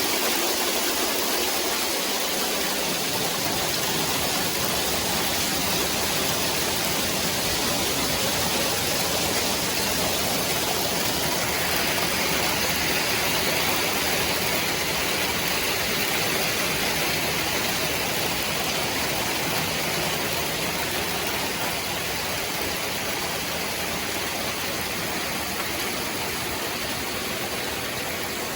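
Hail falling hard, a dense, steady hiss of countless small impacts that eases slightly near the end.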